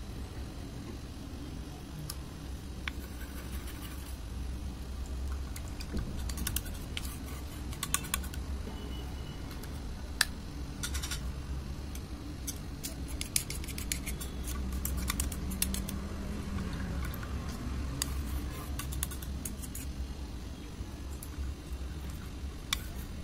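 Spoons clicking and scraping against a plastic bowl while stirring a thick glue mixture, in scattered bursts of quick ticks, over a steady low hum.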